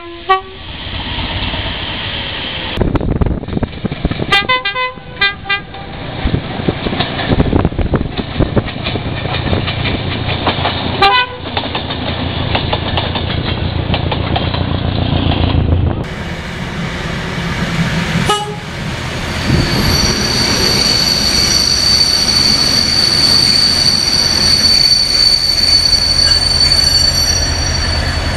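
A train horn sounding a quick series of short blasts over the rumble of a running train, then one more short toot. After that, another train runs with a steady high-pitched whine over its rumble.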